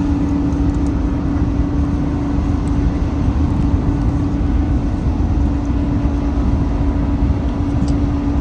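Passing ferry's engines droning with a steady, unchanging hum, over a low rumble of wind on the microphone.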